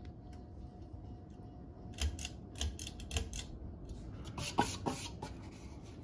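1995 Hunter Infiniti ceiling fan running with a low steady sound, over which come sharp clicks and knocks: three about two to three seconds in, then a quick cluster of clicks and rattles about four to five seconds in.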